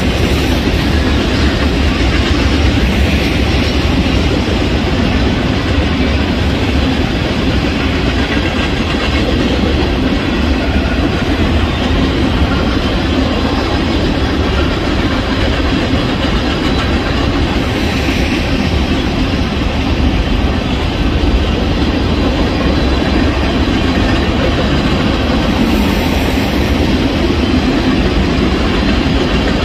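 Union Pacific freight train's covered hopper cars rolling past at speed, a steady rumble of steel wheels on the rails.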